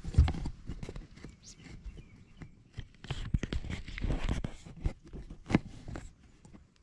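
Handling noise on a chest-worn camera on a bass boat: a sleeve rustling over the microphone while a fishing rod is worked, with scattered clicks and knocks. The sharpest knocks come just after the start and about two-thirds of the way through.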